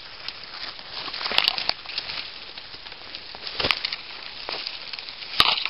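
Footsteps pushing through dense brush and dry leaf litter: a steady rustle of branches scraping past clothing and the camera, broken by three sharper snaps or knocks, the loudest near the end.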